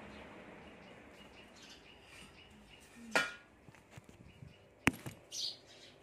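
House sparrows chirping in a few short, high cheeps, with a sharp click a little before the end.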